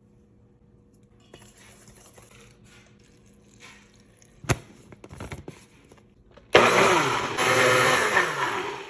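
Countertop blender switched on, running for a little over two seconds and cutting off near the end, blending spinach for the tortilla dough. Before it come light clicks and a single sharp knock.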